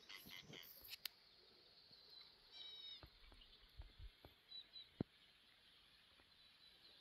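Near silence: faint outdoor background with a few scattered soft clicks and one short high chirp about two and a half seconds in.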